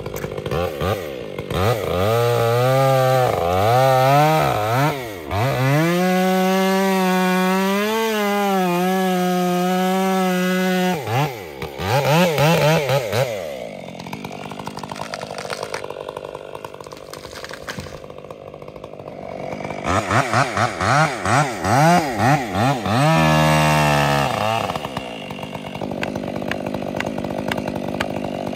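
Stihl 044 two-stroke chainsaw revving to full throttle and holding there for several seconds, its pitch wavering as if under load in a cut. It drops back to idle, then comes up again in shorter revs and quick throttle blips near the end.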